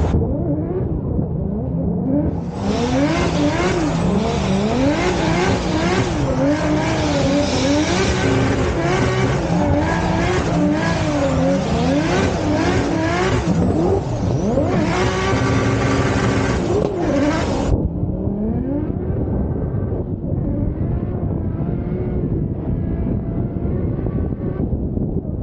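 Nissan 200SX S14 drift car's engine heard from on board, revs rising and falling over and over as the throttle is worked through a drift. A loud rushing hiss lies over it from about two seconds in and cuts off suddenly at about eighteen seconds.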